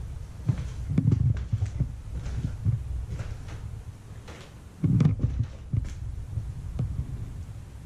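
Footsteps thudding irregularly over a debris-strewn floor, with low knocks from the hand-held camera and a crackle of loose debris underfoot; the loudest thump comes about five seconds in. A low steady rumble runs underneath.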